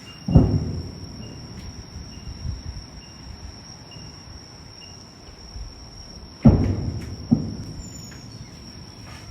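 Distant fireworks shells bursting with sharp booms that rumble away: one shortly after the start, then two close together about six and a half seconds in. A steady high insect trill, typical of crickets, runs underneath.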